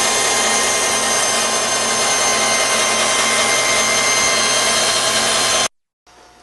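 Band saw running steadily and cutting wood, a loud even machine noise with a constant whine, which cuts off suddenly near the end.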